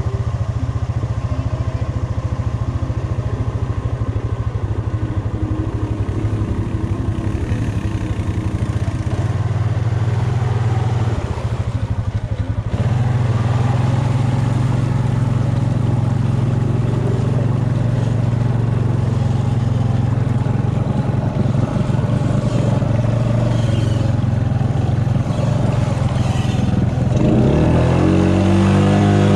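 ATV engine running steadily under load while the quad wades through a flooded, muddy trail. The engine note steps up about 13 seconds in. Near the end it revs up sharply and drops back as the quad bogs down in deep mud.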